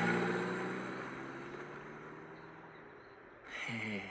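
A car engine's steady hum fading away as the car drives off. Near the end comes a short vocal sound that drops in pitch, like a sigh.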